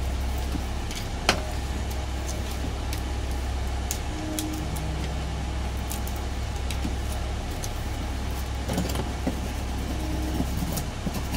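Steady low hum with a few light clicks and ticks from transfer tape being pressed and peeled on a painted sign; one sharper click about a second in.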